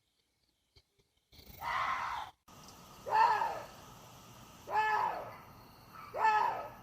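Water deer calling: four harsh, wailing cries about a second and a half apart, each rising and then falling in pitch.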